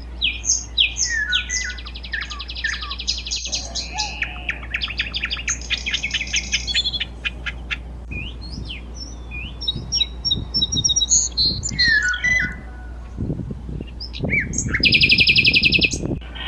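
Several wild birds calling and singing at once: overlapping chirps, whistled glides and fast rattling trills, with one loud, rapid trill near the end.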